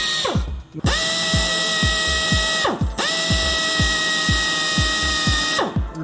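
Electric drill running in bursts of about two seconds, winding down each time the trigger is let go, as it drills out a broken exhaust manifold stud. Background music with a steady beat of about two a second plays throughout.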